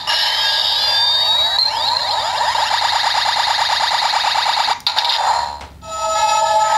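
Electronic sound effects from a CSM Kamen Rider W transformation belt toy's speaker. They open with sweeping synthesized glides, then turn into a fast repeating warble that cuts off about five seconds in, and end with a held electronic chord of several steady tones.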